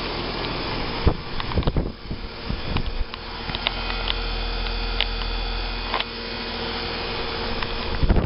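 A 2000 York heat pump's outdoor unit running in cooling mode: a steady electrical hum from the compressor with the whoosh of the condenser fan, and a few sharp knocks about a second in and near the end. The owner takes the unit for dying, because its suction line runs hot instead of cold and sweaty.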